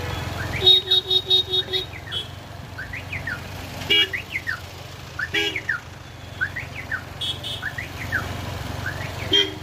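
Vehicle horns on a congested road: a quick run of six short beeps about a second in, then single toots around four, five and nine seconds in. Underneath runs a low engine rumble, with a repeating up-and-down electronic chirp like a car alarm.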